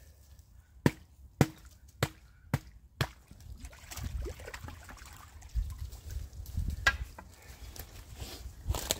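Wood being chopped: five sharp strikes in quick succession, about two a second, each with a short ring. After them comes a low rumble with faint scattered knocks.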